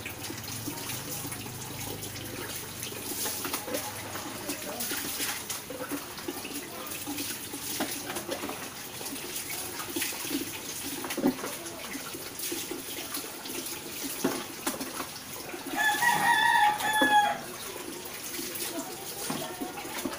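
Water poured from a dipper and splashing over a small dog during its bath, with small knocks and splashes. Near the end a rooster crows once, the loudest sound, lasting about a second and a half.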